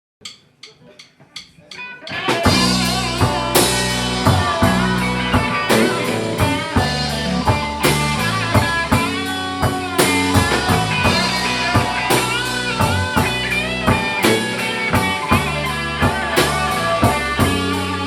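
Instrumental intro of a blues-rock song. About two seconds of quiet ticks lead in, then guitar and drum kit come in together and play on at a steady beat.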